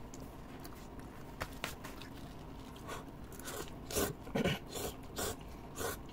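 A person eating instant cup noodles: a series of short slurps and chewing noises, bunched together in the second half.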